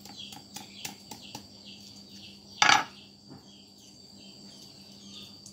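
A kitchen knife working a mango stone open on a wooden chopping board: a run of light quick clicks, then one sharp knock about two and a half seconds in.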